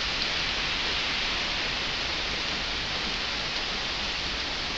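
Heavy thunderstorm downpour: rain pouring steadily onto paving and roofing, a dense, even hiss with no break.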